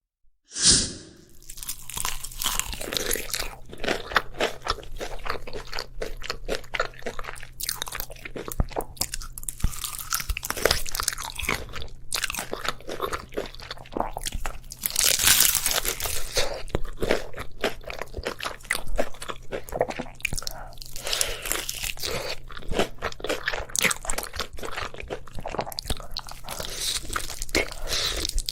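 Close-miked crunching bites into crispy fried chicken, with chewing of the crackling crust, one crunch after another.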